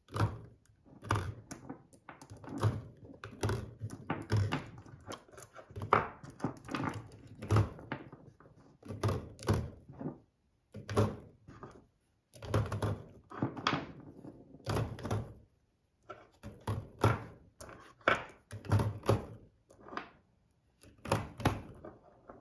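Steel-cased .380 ACP cartridges being handled and set down one at a time into a plastic cartridge tray and onto a wooden tabletop: a string of light knocks and clinks, about one or two a second, with short pauses between runs.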